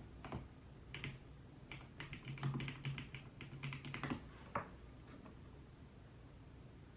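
Typing on a computer keyboard: a run of quick keystrokes through the first four and a half seconds, then a pause with only a faint low hum.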